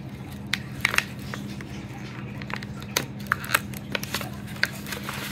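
Scattered light clicks and taps of small stones and their packaging being handled, over a steady low hum.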